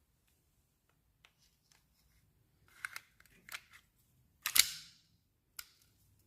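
Airsoft pistol being worked by hand: a few light clicks and knocks, then one sharp snap about four and a half seconds in, the loudest sound, and a last click about a second later.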